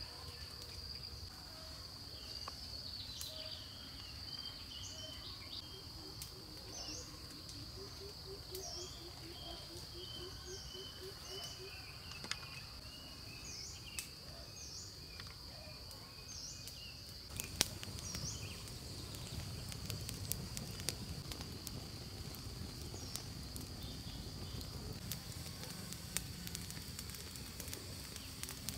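Forest ambience: a steady, high-pitched insect drone with scattered short chirps. About two-thirds of the way through, a low noise with occasional clicks joins in and continues.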